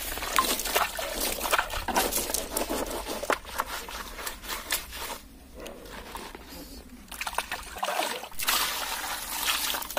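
Water splashing and trickling over a freshly cut banana leaf as a hand rubs it clean, with the crackle and rustle of the stiff leaf being handled; the sound comes in irregular bursts with a short lull a little past halfway.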